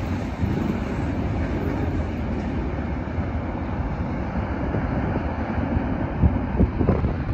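Freight train cars rolling along the track, a steady low rumble mixed with wind buffeting the microphone.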